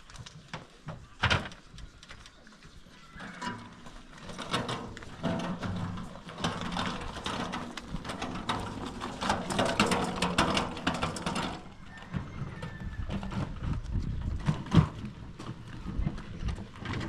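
Animal sounds with scattered knocks and clicks, busiest for several seconds in the middle.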